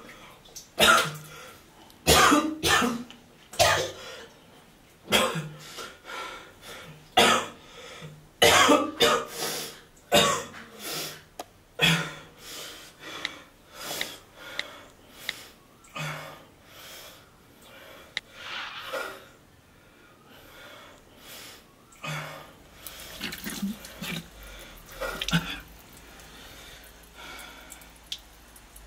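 A man coughing and retching over a toilet: harsh gagging coughs come one after another, about one every second or two. They are loud for the first dozen seconds, then weaker and further apart, and die away near the end.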